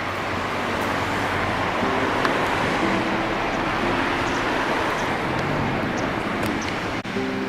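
Steady rushing noise of a moving vehicle, wind and running engine, under faint background music.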